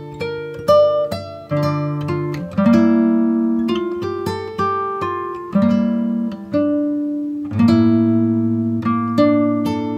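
Background music: an acoustic guitar playing plucked notes and chords, each one ringing and fading.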